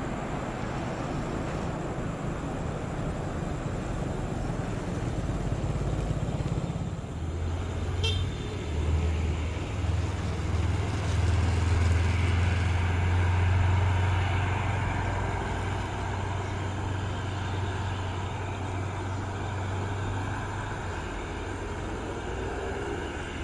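A low engine rumble with a steady hum that builds up about seven seconds in, is loudest a few seconds later, and eases off after about twenty seconds, over constant outdoor traffic noise. A brief high chirp comes about eight seconds in.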